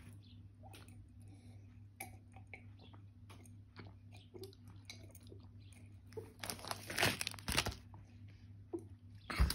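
A toddler chewing Keogh's sweet chilli potato crisps, with many small crunches, a louder bout of noise around seven seconds in, and a sharp knock near the end.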